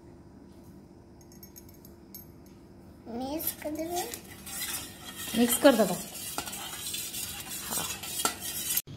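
Steel spoon stirring juice in a stainless steel bowl, scraping and clinking against the metal sides. It starts about three seconds in.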